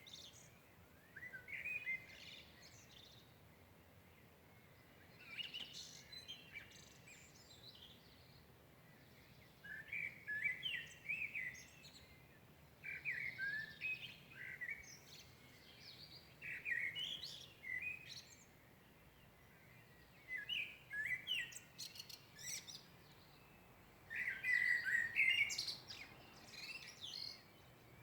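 A songbird singing in short phrases of a second or two, repeated every few seconds with short pauses between, over a faint steady background hush.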